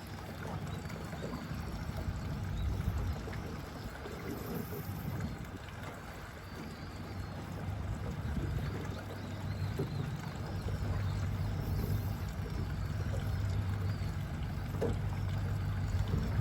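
A boat's engine running steadily as a low hum, with water noise over it.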